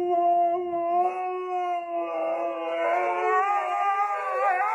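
Huskies howling: one long, steady howl, and about two seconds in a second, higher howl that wavers in pitch joins over it.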